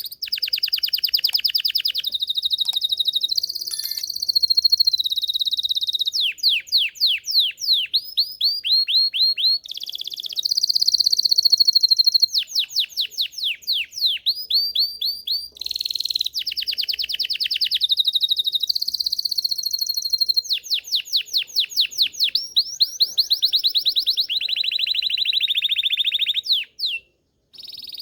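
Belgian canary singing a long, continuous song. Phrases of rapidly repeated downward-sweeping notes alternate with fast steady rolls, the phrase changing every second or two. There is a brief pause near the end.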